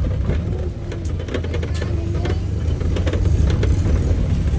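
Steady low rumble of a vehicle's engine and road noise while driving, with faint scattered clicks and traffic sounds.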